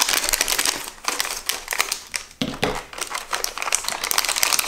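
Clear plastic wrapping crinkling as a Canon Selphy photo-printer ink cassette is pulled out of it, in quick irregular crackles with a couple of short pauses.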